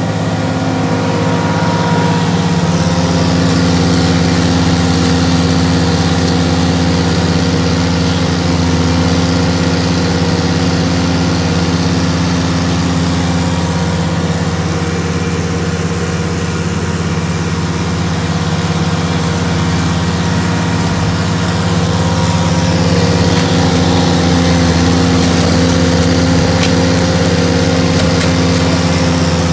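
Ditch Witch SK600 mini skid steer running steadily under load, driving a flail mower attachment that spins and chops through tall grass and weeds. The drone rises slightly a few seconds in and again near the end.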